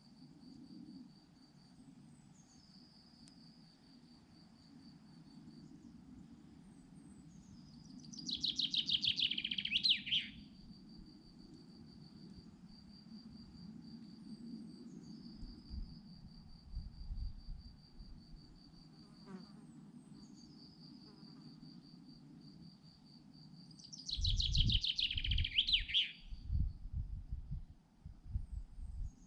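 Pine wood ambience: an insect trills steadily on one high pulsing note, with a faint low rumble under it. Twice, about a third of the way in and again near the end, a songbird sings a loud, fast trill that drops in pitch over about two seconds. Low thumps follow the second song.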